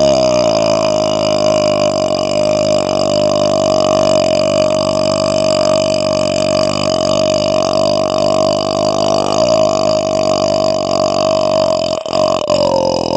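A man's long, drawn-out belch, held almost level in pitch, with a brief break about twelve seconds in before the burping carries on.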